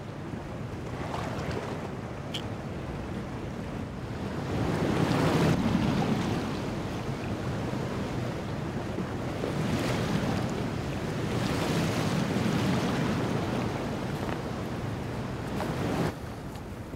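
Sea waves and wind on open water around a small inflatable rowing dinghy as it is rowed. The water wash swells every few seconds and drops off suddenly near the end.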